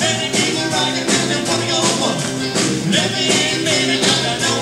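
A live mixed band of brass horns, trumpet and marching-band percussion jamming a blues, with a steady beat.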